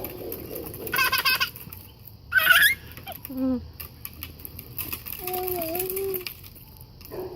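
A young child's wordless vocal sounds: short high squeals, a falling cry, then a longer, lower wavering 'ooh'.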